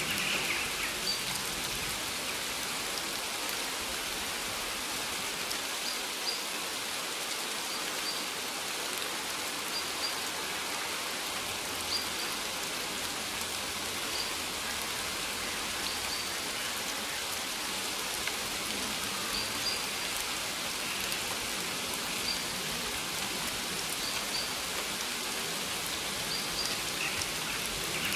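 Steady rain falling on maize leaves: an even hiss with scattered louder drop ticks. Faint short high chirps recur every second or two throughout.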